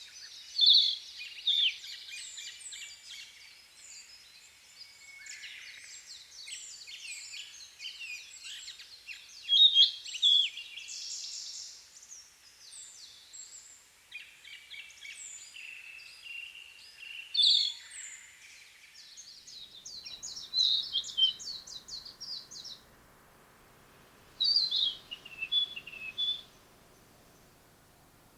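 Narcissus flycatcher singing: a varied run of high whistled and chirping phrases, crowded together at first, then coming as separate phrases with short pauses in the last third.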